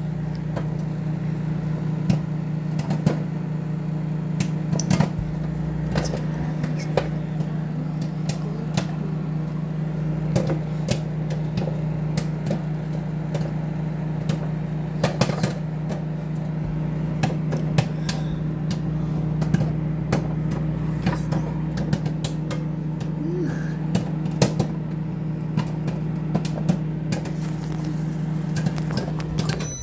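Popcorn popping: scattered sharp pops, a few at a time, over a steady low hum that cuts off suddenly at the very end.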